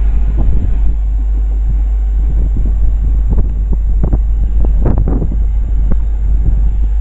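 Strong wind buffeting the microphone: a heavy low rumble with irregular gusts that come and go, loudest about five seconds in.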